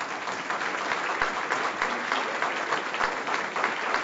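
Audience applauding steadily, heard over a video-conference link.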